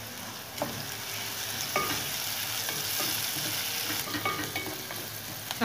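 Sliced onions, green chillies, ginger and freshly added curry leaves sizzling steadily in hot oil in a pot, stirred with a wooden spatula, with a few light knocks of the spatula against the pot.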